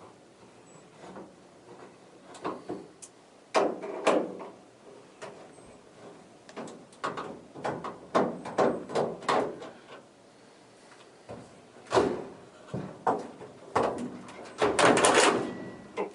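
Irregular knocks, clicks and clatters of the Speed Queen dryer's sheet-metal panels and screws being handled as the cabinet is taken apart, with a longer scraping rattle about fifteen seconds in.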